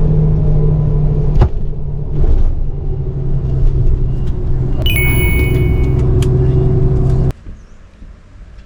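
Motor vehicle running, with a steady low drone, a few knocks, and a brief high tone about five seconds in; it cuts off suddenly near the end, leaving faint outdoor noise.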